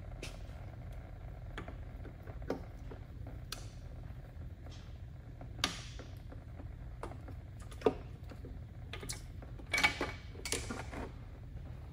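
Scattered metal clicks and clinks as a piston and connecting rod are worked out of a 1275cc A-Series engine block by hand, with a cluster of clicks near the end, over a low steady hum.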